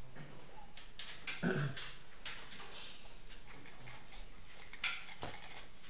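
A few light clicks and knocks of coloured pencils being picked up and set down on a drawing desk, with a brief low sound about a second and a half in.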